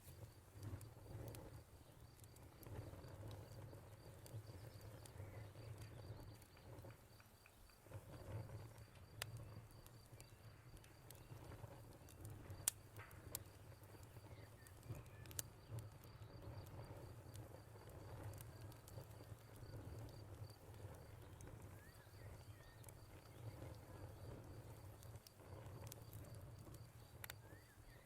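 Quiet crackling fire: a low steady rumble with scattered sharp pops and snaps. Over it a cricket chirps in an even, high-pitched pulse that stops for a few seconds now and then.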